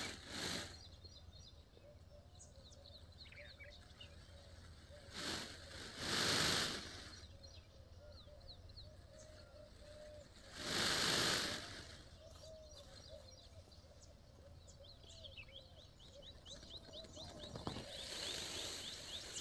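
Faint bird calls outdoors, with a steady wavering call and quick high ticking, broken by a few bursts of rustling noise about a second long.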